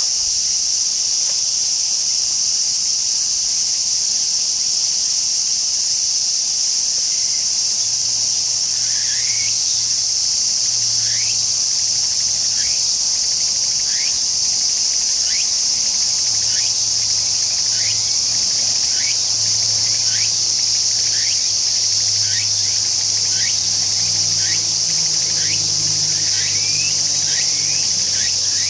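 A tsukutsukuboushi cicada (Meimuna opalifera) singing over a steady high buzz. About a third of the way in, its repeating phrases begin, roughly one a second, and they quicken near the end.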